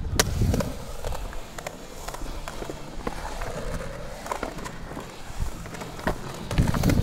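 Skateboard dropping into a concrete bowl: a sharp clack just after the start as the wheels land on the transition, then the wheels rolling and carving over the concrete with scattered clicks, the rolling sound dipping and rising in pitch midway.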